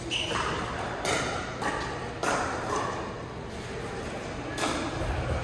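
Pickleball paddles striking the plastic ball: a few sharp pops at irregular intervals, echoing in a large indoor hall, with voices faint underneath.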